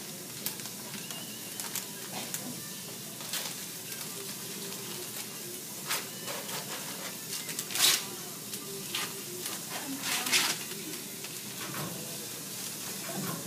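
Rustling and crinkling of sterile surgical wrap and gown material being handled, over a steady hiss. Sharper crackles come about eight and ten seconds in.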